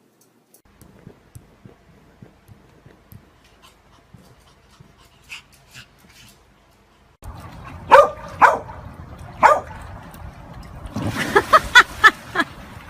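A dog giving short, high yelping barks and whines, single calls at first and then a quick run of them, after several seconds of faint clicking and rustling.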